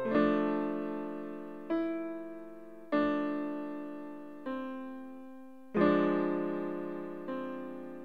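Slow solo piano music: chords struck every one to two seconds and left to ring and fade.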